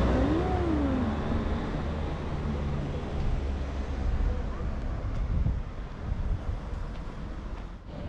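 Street traffic: a passing vehicle's low rumble, loudest at the start and fading away over several seconds, with a brief engine tone that rises and falls in the first second.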